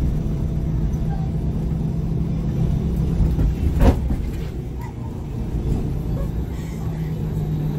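2014 MAN Lion's City G articulated bus's diesel engine idling steadily at a standstill, with one short sharp knock about four seconds in.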